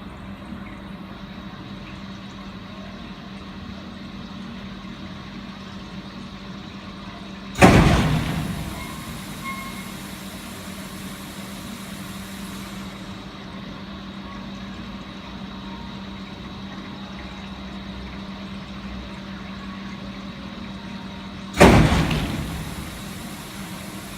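A DPF cleaning machine running with a steady hum, broken twice by a loud sudden burst, about fourteen seconds apart, that dies away over a second or two.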